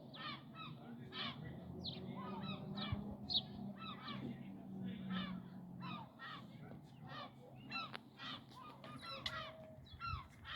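A flock of seagulls calling, many short repeated calls overlapping one another.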